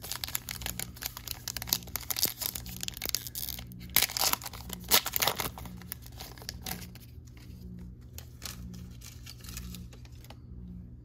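Foil Topps Chrome card pack being torn open, a dense crinkling tear that is loudest about four to five seconds in, then dies down to softer rustling of the wrapper.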